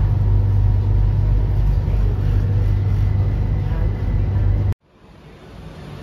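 Steady low rumble of a moving Bangkok Airport Rail Link train, heard from inside the carriage. Near the end it cuts off abruptly, leaving much quieter background noise.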